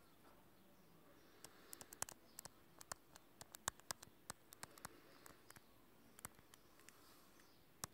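Irregular sharp clicks and taps over faint room hiss, thickest from about a second and a half in, from handwriting on a phone's touchscreen.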